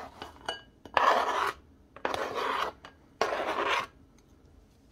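Knife blade scraping diced cucumber across a plastic cutting board into a glass bowl: three scrapes about a second apart.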